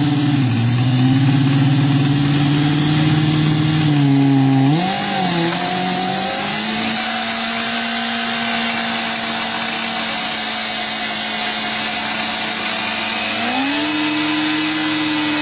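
Sportbike engine held at high revs in a standing burnout, the rear tyre spinning on the tarmac. The revs dip and waver about four to five seconds in, hold steady, then climb again near the end.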